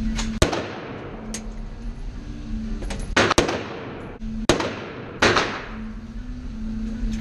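Daniel Defense M4A1 rifle firing single 5.56 mm shots: four loud cracks, the first just after the start and then three about a second apart from roughly the middle. Each echoes off the indoor range, with fainter shots from neighbouring lanes in between.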